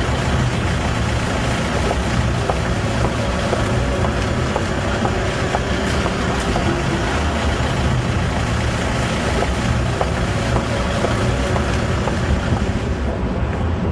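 Steady low rumble and noise of a running vehicle, with a few faint ticks.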